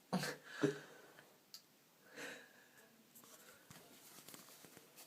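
A boy's short breathing sounds: two brief voiced breaths in the first second, a faint breath about two seconds in, then near silence.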